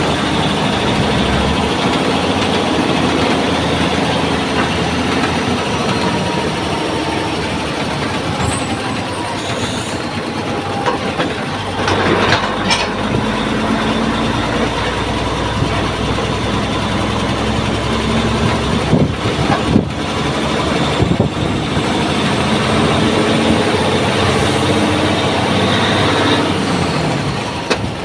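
Heavy diesel engine of a rubber-tyred gantry crane running steadily, with a few sharp clanks in the middle of the stretch.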